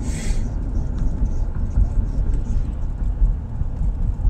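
Steady low road rumble of a car being driven, with a brief hiss right at the start.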